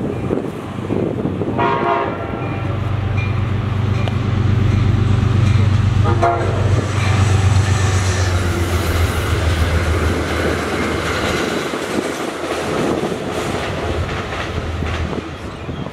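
Amtrak GE P32AC-DM diesel locomotive passing at speed with Amfleet coaches. It sounds its Nathan K5LA chime horn in short blasts near the start and once more briefly about six seconds in, over a low steady engine drone and the rush of wheels on rail, and the drone fades out near the end as the train moves away.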